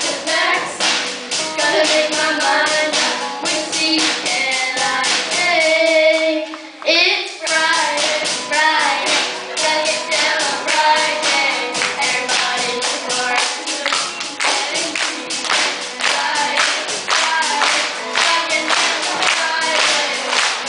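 Boys singing a pop song into amplified microphones over music with a steady beat; the beat drops out briefly about seven seconds in, then comes back.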